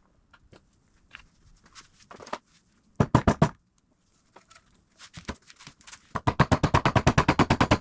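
A ratchet wrench clicking rapidly as it is spun while tightening suspension hardware: a short run about three seconds in, then a longer even run of about fourteen clicks a second from about six seconds in.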